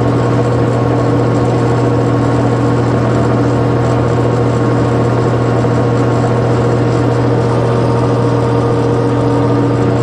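Colchester 15x48 metal lathe running steadily, a constant loud machine hum with a strong low drone and fainter steady higher tones.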